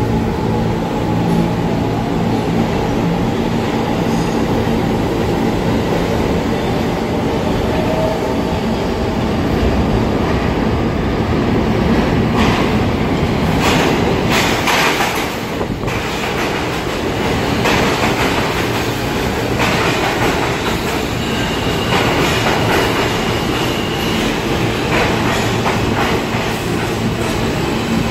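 An R46 New York City subway train comes into the station, its wheels rumbling and clattering over the rails. There is a cluster of sharp clacks a little before halfway, and a steady high wheel squeal for a few seconds past the middle.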